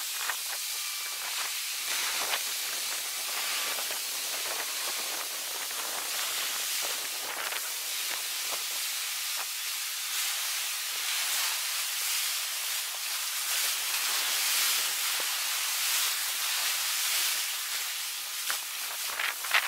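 Tsunami surge water and surf rushing over the beach: a steady, even hiss with no low rumble.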